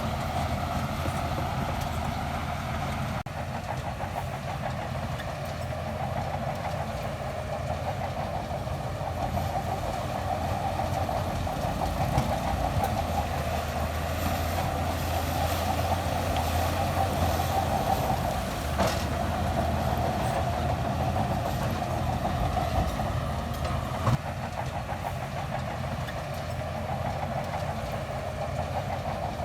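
Crawler bulldozer's diesel engine running steadily while its steel tracks clatter and squeal, with a couple of sharp knocks in the second half.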